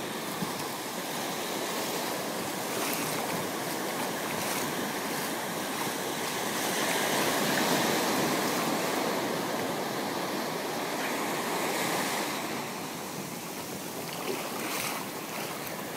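Surf washing onto a sandy beach: a steady rush of waves that swells a little midway and eases near the end.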